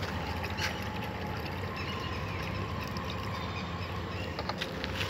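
Steady low outdoor rumble. Toward the end, water is poured from a plastic jug into a dog's water bowl.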